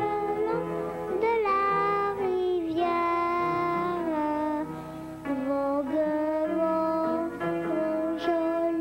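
A young boy singing a French song solo, holding long melodic notes, with piano accompaniment underneath.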